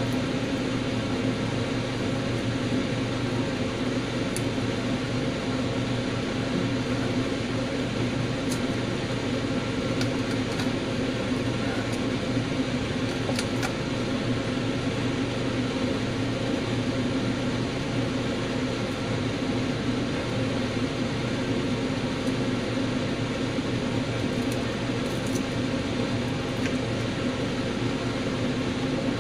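Steady electric hum of a fan or appliance motor running, even in level throughout, with a few faint clicks scattered through it.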